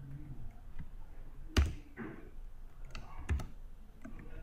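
Computer keyboard keystrokes: a few scattered key presses, two of them louder, about a second and a half in and near the end.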